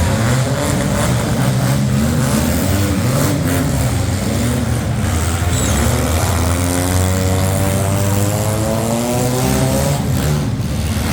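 Demolition derby cars' engines running loud, one revving up with rising pitch from just past halfway through, with a few short sharp knocks of metal contact.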